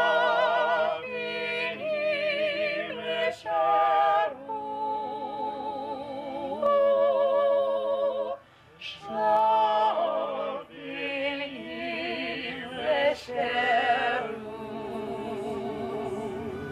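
A singer's voice performing a slow song with long held notes and wide vibrato, breaking off briefly about eight seconds in before going on.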